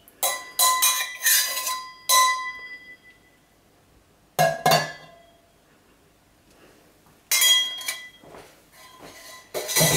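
Containers clinking against glass as sodium lactate and sugar syrup are added to a lye solution: a cluster of sharp, ringing clinks in the first two seconds, another at about four and a half seconds, and more near the end.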